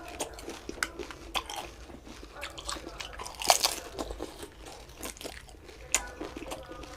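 Fuchka (panipuri) being bitten and chewed: crisp hollow puri shells filled with spiced mashed potato crunching in the mouth as a series of short crackles. There is a sharper crunch about three and a half seconds in and another near six seconds.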